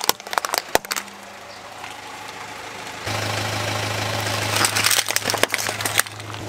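Car tyre crushing plastic toys, with a run of sharp cracks and snaps in the first second and another from about four and a half to six seconds in. The car's engine idles underneath, a steady low hum after a cut about three seconds in.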